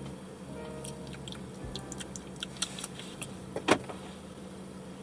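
Car's power door locks clunking shut once, loudly, near the end, after a few light clicks, over a steady low hum inside the car.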